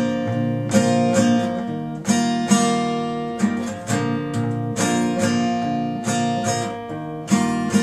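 Steel-string acoustic guitar strummed in chords, about one or two strokes a second, each chord left to ring before the next.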